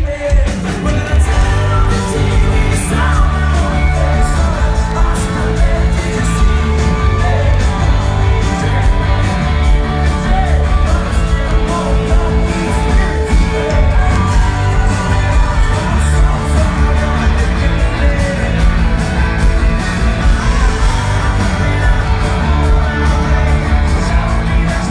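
Live rock band playing loudly: a lead singer over electric guitar, bass and drums.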